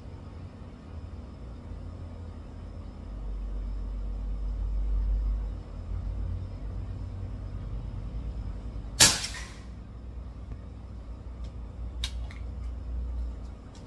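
Greyhound Leviathan PCP air rifle firing a single shot about nine seconds in: one sharp crack with a short ringing tail. About three seconds later come a few small metallic clicks as the bolt is worked, over a low rumble that runs throughout.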